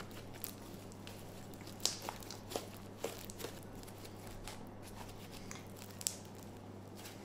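Pink fizz slime made with plastic fake snow being squeezed and stretched by hand, giving scattered crunchy crackles and pops over a low steady hum.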